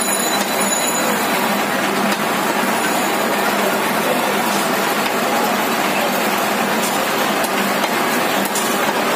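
Steady roadside traffic and market din, with a few faint knocks of a cleaver chopping chicken on a wooden log block.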